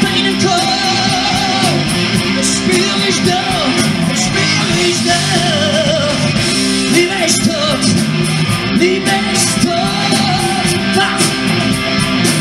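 Live rock band playing loud and amplified: electric guitar, bass and drums with regular cymbal hits, under a man singing at the microphone.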